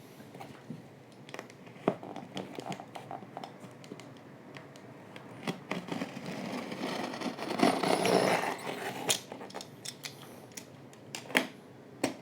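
A cardboard laptop box being opened and its packaging handled, with scattered clicks, knocks and scrapes. A louder stretch of rustling, scraping packaging comes a little past the middle.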